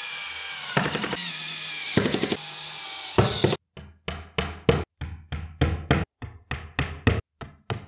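Cordless drill driving screw-in dowels into a particleboard furniture panel, running steadily with a few short bursts of rapid clicking. From about three seconds in, a hammer taps dowels into the panel, about four blows a second.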